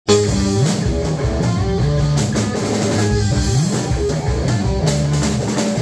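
Live rock band playing: electric guitar over a drum kit, with notes sliding up and down between steady drum hits. The music cuts in abruptly at the very start.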